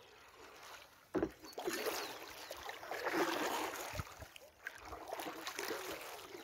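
Kayak paddle strokes in the water, the blades splashing and dripping as they dip and lift, with a sharp knock about a second in.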